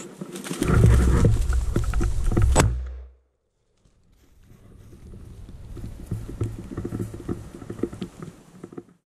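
Heavy rumbling handling noise on the camera microphone with crackling twigs and a sharp snap at about two and a half seconds, cut off by a sudden half-second dropout. After it comes softer rustling and crackling of dry brush and pine branches being pushed through.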